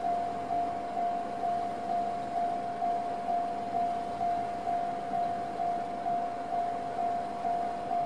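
Japanese level-crossing electronic warning alarm of the JR Tōhoku type: a single tone pulsing evenly about twice a second, signalling an approaching train.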